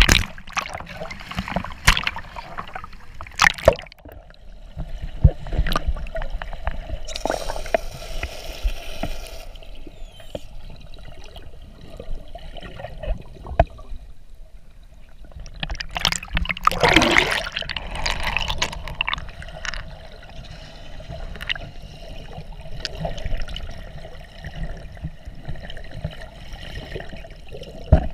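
Seawater splashing and gurgling around an action camera at and just below the surface as snorkelers kick with fins, with irregular sharp splashes and bubble noise and a louder rush of splashing about two-thirds of the way through.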